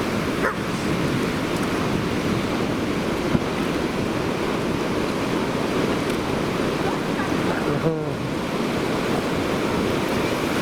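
Sea surf breaking and washing onto a sandy beach, a steady rushing noise, with wind on the microphone.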